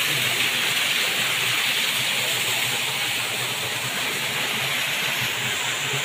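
Waterfall: a steady rush of water pouring over rocks, an even hiss that holds at one level.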